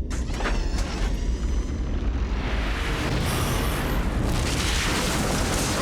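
Cartoon action sound effects: a continuous deep rumbling and booming with a dense rushing noise and wavering electronic tones, under score music.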